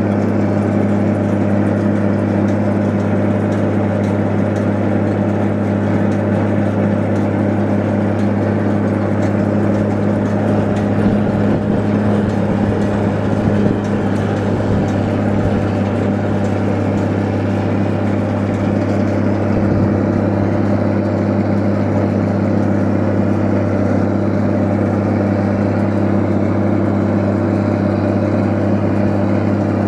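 Tractor engine running steadily at a constant pitch while driving a Hesston 5500 round baler during baling.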